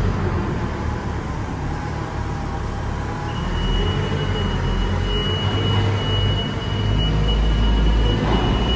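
Liebherr telehandlers' diesel engines running under load with a steady low rumble as they work a bulk-material heap, the rumble swelling near the end.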